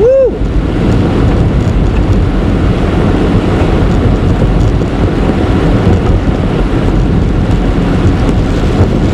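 Steady noise inside a car driving through heavy rain: tyres on the flooded road and rain on the car's body and windshield.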